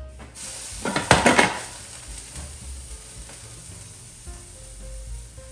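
Hard plastic clattering and knocking about a second in, as a food processor bowl is brought out and set on the counter. After that comes a steady faint hiss with a few small knocks.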